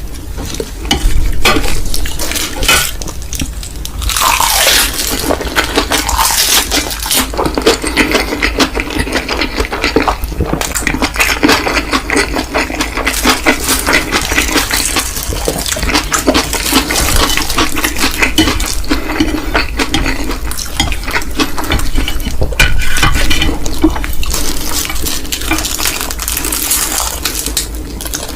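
Someone eating mi goreng instant noodles: slurping and chewing, with utensils clicking against the dish throughout.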